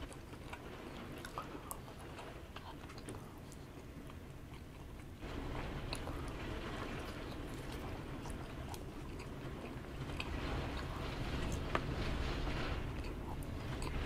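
Close-up chewing with small clicks of chopsticks on the food tray, over a steady rush of typhoon wind and rain outside that jumps louder about five seconds in and keeps building.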